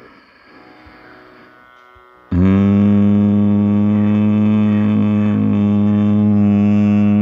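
Bhramari (bee breath) pranayama humming: after a quiet breath in, a loud, steady low hum starts about two seconds in and is held without wavering on the out-breath.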